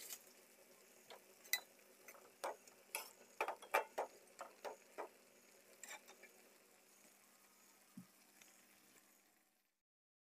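Faint, irregular ticks and pops of water simmering in a wok around a block of instant noodles and cabbage, thinning out in the second half.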